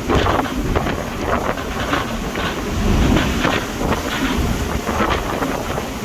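Strong wind buffeting the microphone aboard a ship at sea in a storm: a dense, steady low rumble broken by irregular gusty crackles.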